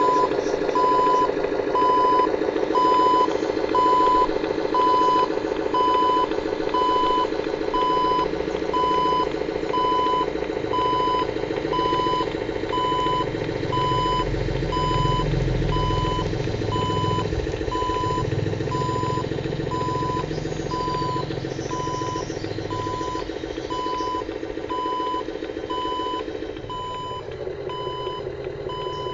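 Reversing alarm from a radio-controlled model Hino 500 truck, a steady beep repeating a little faster than once a second. It plays over a continuous engine sound and grows quieter towards the end.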